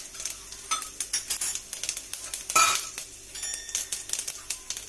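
Cumin seeds sizzling and crackling in hot oil and ghee in a pan, with a spoon clinking and scraping against the pan; the loudest knock comes about two and a half seconds in.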